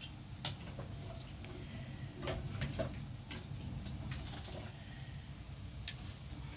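Stovetop pot of water boiling: a low steady hum with light ticks and clicks scattered through it, about seven in all.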